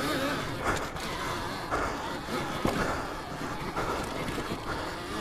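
Alta Redshift MXR electric dirt bike riding on a trail, its drive chain and sprockets clattering and whining with no engine sound, with a few irregular knocks.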